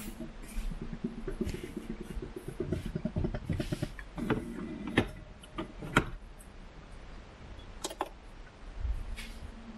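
Rustling and handling noise from a handheld camera being carried, broken by a few sharp clicks, the loudest about five and six seconds in.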